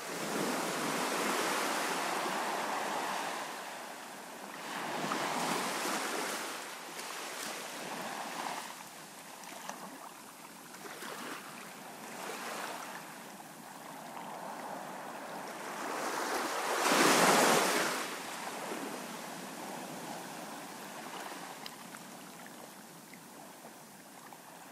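Waves breaking on a sandy shore and washing back, swelling and fading every few seconds, with the loudest wave well past the middle.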